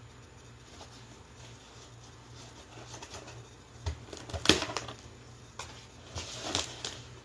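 Cardboard shipping box being handled and cut open with a box cutter: a few sharp knocks and scraping, rustling strokes in the second half, the loudest about four and a half seconds in.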